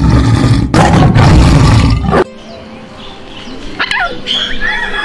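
A loud animal call lasting about two seconds, cut off abruptly, followed by quieter bird calls with short sweeping notes and held whistling tones near the end.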